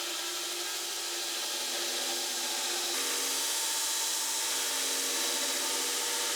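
Power grinder running against the face of a high-carbon steel Damascus billet, a steady grinding hiss with a few faint steady tones underneath. The tones shift about three seconds in, as if the grinding pressure or a section of footage changes.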